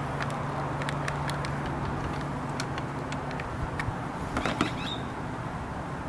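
Scattered light clicks and taps of plastic toilet parts being handled, over a steady low hum that fades out about three and a half seconds in.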